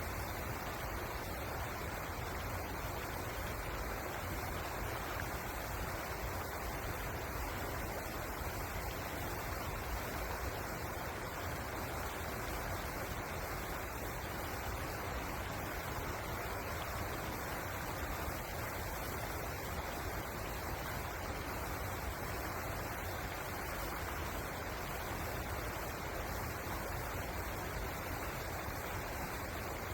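Steady rushing of river water, an even noise with no breaks or single events.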